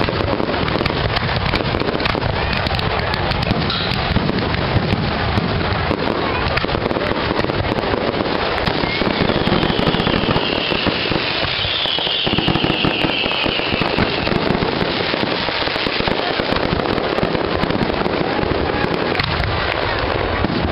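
Fireworks going off in a continuous barrage of crackling and bangs, with a high whistle lasting a few seconds about halfway through.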